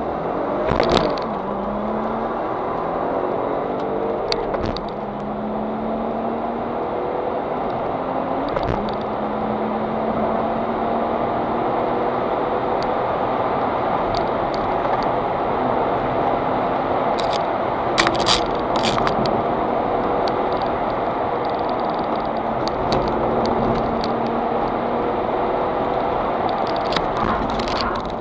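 Audi S4 B5's 2.7-litre twin-turbo V6 heard from inside the cabin under hard acceleration. The revs climb and drop at gear changes about one, four and a half and nine seconds in, then the engine runs at high revs with slow rises and falls. Sharp clicks and rattles come through twice, once in the middle and once near the end.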